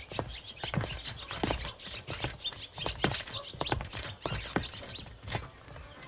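An irregular series of sharp knocks and clicks, a few a second.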